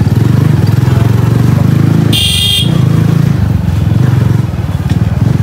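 Motorcycle engine running with a steady, rapid pulsing at low riding speed. About two seconds in, the engine eases briefly while a short high-pitched ringing sound cuts in.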